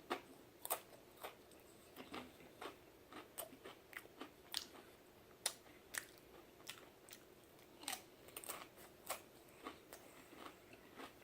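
Close-up mouth sounds of a person biting and chewing Pringles potato crisps: irregular sharp crunches and crackles, a few every second, at low level.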